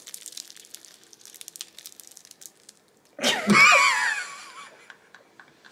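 Flaky croissant pastry crackling softly as it is torn open by hand, then a loud, high-pitched, wavering laugh about three seconds in that falls away.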